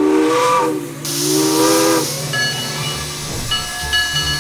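Steam locomotive chime whistle sounding two blasts of about a second each, several notes at once, with a loud hiss of escaping steam that carries on after them. Two short blasts are the signal that the train is about to move off.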